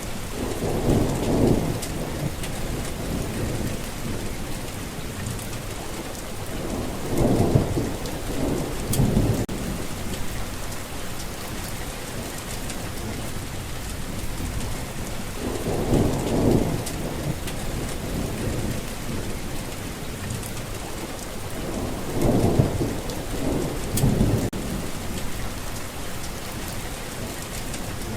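Thunderstorm: steady rain hissing throughout, with low rolls of thunder swelling up and fading away several times, some in quick pairs.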